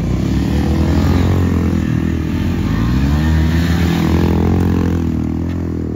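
Modified ATV's engine running while riding, its pitch rising and falling as the throttle is opened and eased.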